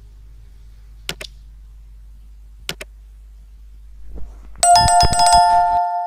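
Subscribe-button animation sound effects over a low hum: two mouse clicks about a second and a half apart, then a bell ringing loudly for about two seconds near the end.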